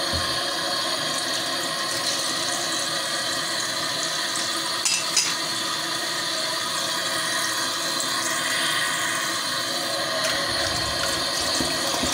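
Kitchen tap running in a steady stream into a stainless steel bowl in a metal sink, splashing over parboiled chicken pieces being rinsed by hand in cold water. A couple of brief knocks come about five seconds in.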